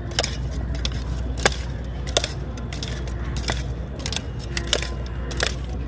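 Wooden spoon stirring cut fruit and spice masala in a stainless steel mug, knocking against the metal about six times at irregular intervals over a steady low rumble.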